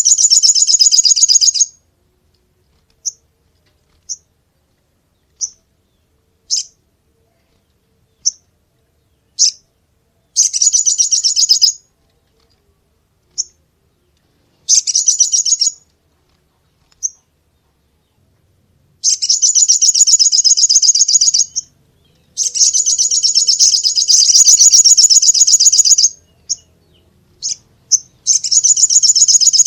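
A sunbird (sogok ontong) singing: high, rapid buzzy trills lasting one to four seconds, with single short chirps between them and silent gaps. The longest trill starts about 22 seconds in, and another runs through to the end.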